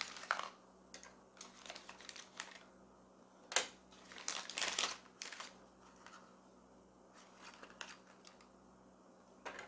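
Clear plastic accessory bags crinkling and rustling as they are handled and opened, in irregular bursts, busiest in the first half, with one sharp tap about three and a half seconds in.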